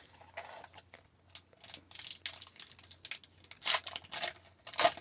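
Trading cards and a foil pack wrapper being handled: a run of short crinkling and sliding rustles, loudest near the end.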